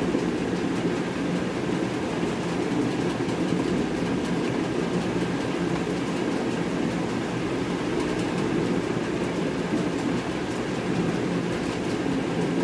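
Steady low rumbling noise that holds at an even level throughout.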